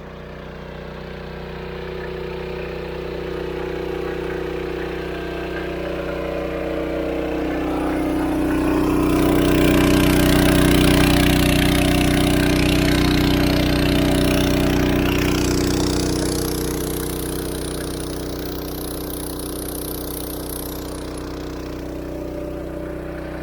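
Small petrol engine of a dam water pump running steadily. It gets louder and fuller in the middle, then eases back.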